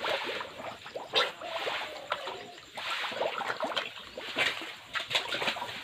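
Piglets wading in a shallow water trough, with irregular splashing and sloshing of water.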